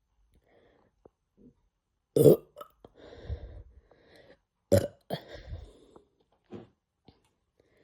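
A person burping from a stomach bloated with cola: two short, loud burps about two and a half seconds apart, each followed by softer breathy sounds.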